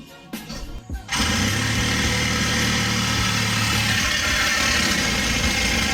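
A motor or engine running steadily and loudly, cutting in suddenly about a second in.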